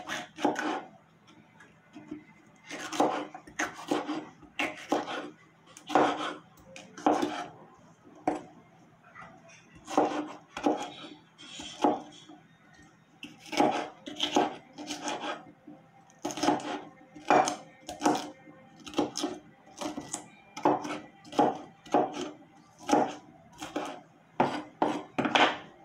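Kitchen knife chopping a green bell pepper on a wooden cutting board: a long run of irregular knocks, one or two a second and sometimes in quick pairs, as the blade strikes the board through the pepper.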